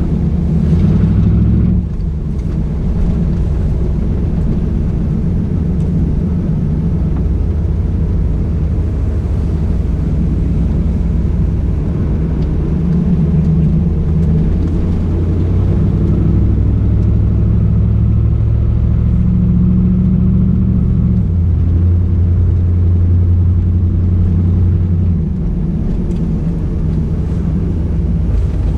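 1993 Chevrolet Camaro Z28's LT1 V8 engine and road noise heard from inside the cabin while driving: a steady low drone whose pitch drops a little about two-thirds of the way through and rises again a few seconds later.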